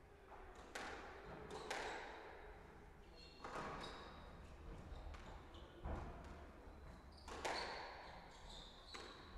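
Squash rally: the ball struck by rackets and smacking the front and side walls, about half a dozen sharp hits a second or two apart, with short squeaks of shoes on the wooden court floor.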